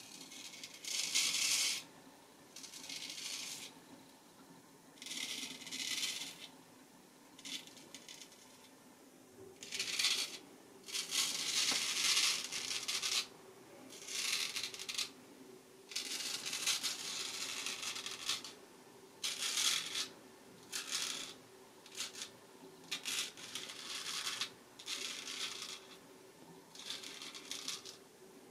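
Straight razor scraping stubble through shaving lather in a run of short strokes, each a second or so long, with brief pauses between.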